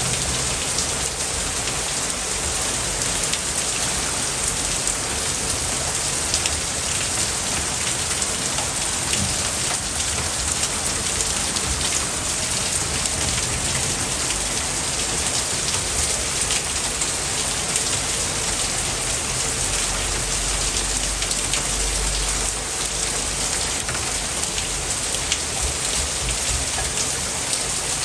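Steady rain pattering evenly, with many small drop ticks and a brief low rumble about twenty seconds in.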